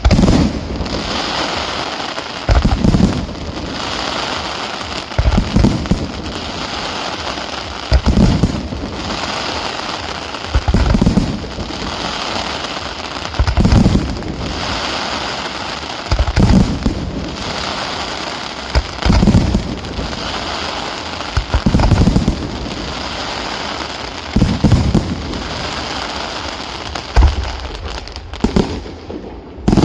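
Fireworks display: continuous dense crackling, with a heavy bang about every two and a half to three seconds.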